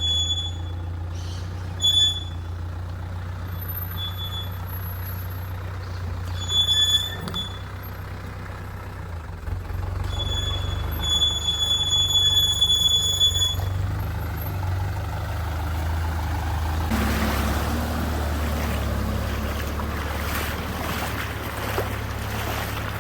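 Mitsubishi Canter 4x4 truck's diesel engine running low and steady as it drives off-road, with short high squeaks from the body or suspension a few times. About two-thirds of the way through, a broad rushing noise comes in over the engine.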